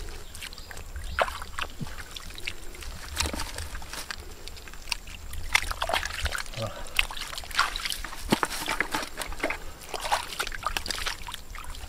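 Hands splashing and sloshing through a shallow pool of muddy water to grab eels and fish, with irregular wet slaps and splashes.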